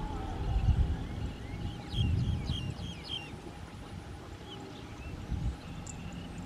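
Farm tractor engine running as it pulls a rotary tiller across a rice paddy: a low rumble that swells briefly three times. Birds chirp a quick series of short high notes about two seconds in.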